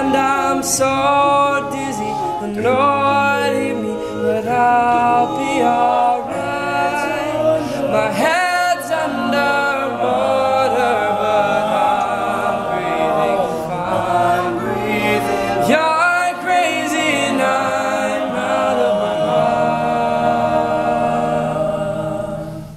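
All-male a cappella group singing in close harmony, a featured solo voice over the others' backing vocals, with no instruments. Near the end they hold a long chord, and then the sound drops away.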